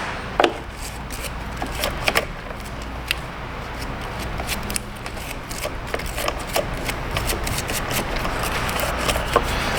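Irregular small clicks, rustles and scrapes of parts being handled, over a steady low hum.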